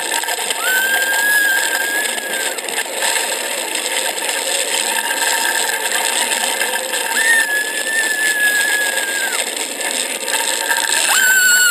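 Roller coaster onboard ride audio played back through a small phone speaker: a constant rattling ride noise, with two long, high screams of about two seconds each and a third starting near the end.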